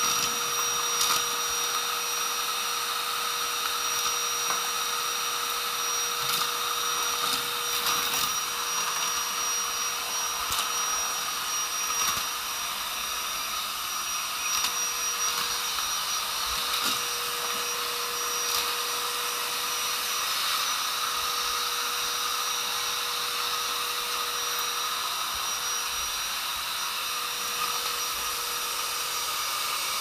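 Kärcher WD1 wet-and-dry vacuum cleaner running steadily with a high motor whine as its floor nozzle is worked across a hard floor, with a few brief clicks along the way.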